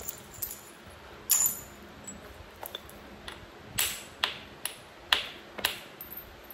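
Hand-held hammer striking and rubbing the edge of a chert flake during flintknapping: a series of sharp stone-on-stone clicks and taps, about two a second, a few louder ones ringing briefly.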